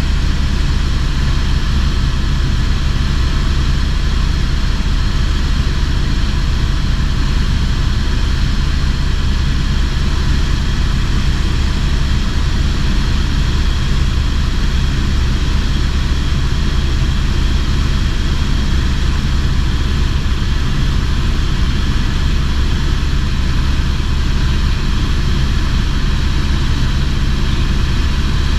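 Helicopter in flight, heard from inside the cabin: a steady, loud drone of rotor and turbine that holds unchanged throughout.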